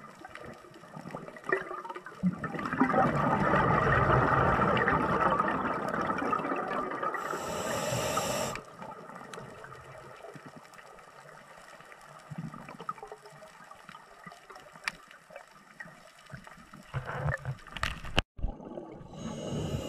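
Scuba diver's regulator underwater: one long exhalation, a loud burst of bubbles from about two seconds in to about eight and a half seconds, with a high hiss in its last second. Quieter bubbling and scattered clicks follow.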